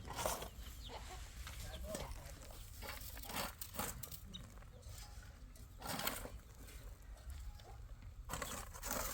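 Chickens clucking, over a steady low rumble, with brief bursts of noise at the start, about six seconds in and near the end.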